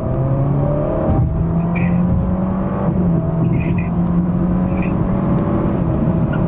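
Alfa Romeo Giulia's 2.0-litre turbocharged four-cylinder accelerating hard, heard from inside the cabin. The engine note climbs, drops at an upshift about a second in and again near three seconds, then climbs once more.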